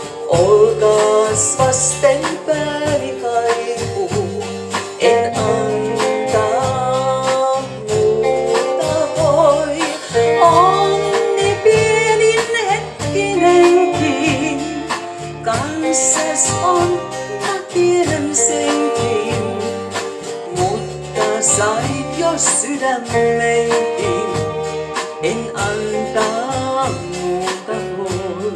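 Live band playing a mid-tempo song: electric and acoustic guitars, bass line and drum kit, with a woman singing.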